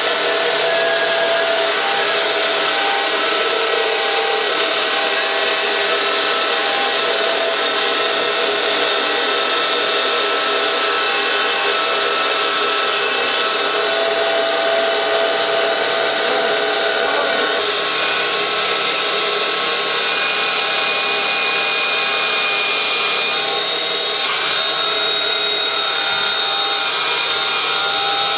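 Falberg portable band saw running with its electric motor while the blade cuts a curve down through a thick timber beam: a steady machine whine over the rasp of the cut, shifting slightly in tone about two-thirds of the way through.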